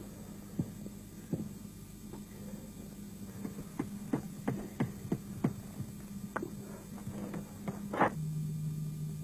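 Over a dozen light, irregular knocks and taps as a thin stick is worked and fixed into the ground, over a steady low electrical hum on the recording.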